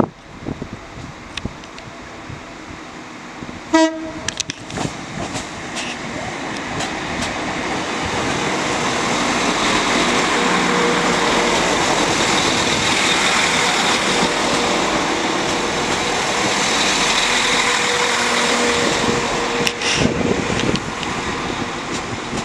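Northern class 195 diesel multiple unit gives a short horn toot about four seconds in, then draws up and runs past close by. Its noise builds to a loud, steady rush with a faint steady hum under it, easing a little near the end.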